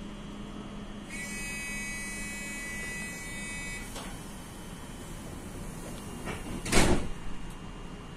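Door-closing warning tone of a ČD class 471 CityElefant double-deck electric train, a steady high beep lasting close to three seconds, followed about three seconds later by a loud thump as the doors shut, all over the standing train's steady low hum.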